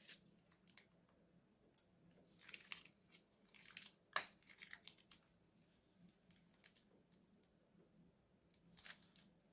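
Faint crinkling of a plastic piping bag being squeezed and twisted to pipe out slime, with scattered clicks and one sharper click about four seconds in.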